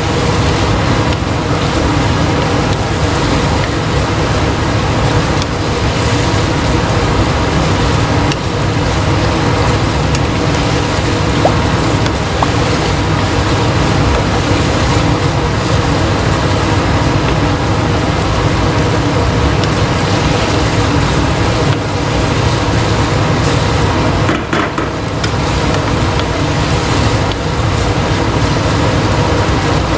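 Minced beef in sweet soy sauce frying in a pan, a steady sizzle over a constant low rumble.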